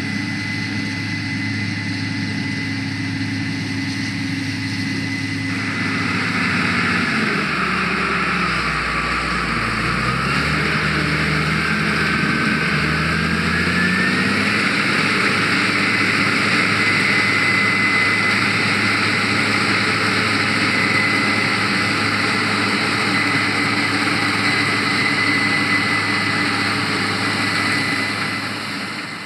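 Case IH 8120 Axial-Flow combine harvester running. About five seconds in, a louder rushing noise joins the engine hum, and the engine note sags for a few seconds and then climbs back up. The sound fades out at the very end.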